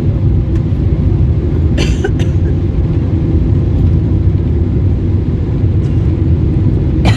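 Airliner cabin noise on the landing rollout just after touchdown: a loud, steady low rumble of the engines and the wheels running on the runway. A short rattle comes about two seconds in, and a clatter near the end.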